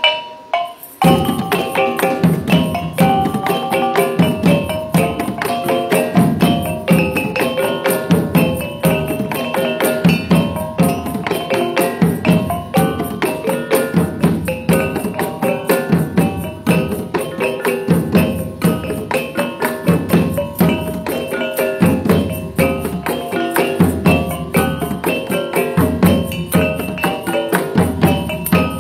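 Caklempong ensemble playing traditional music: rows of small bronze kettle gongs struck in fast, ringing melodic patterns over steady beats on gendang barrel drums. It starts about a second in after a short break.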